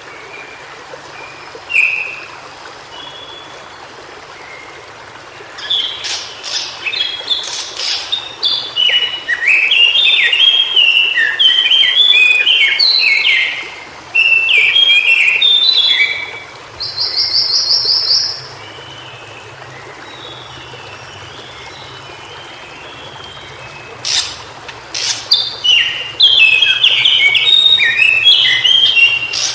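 White-browed shortwing singing: long bursts of rapid, jumbled warbling notes, one ending in a fast buzzy trill. There is a pause of several seconds before the song starts again near the end.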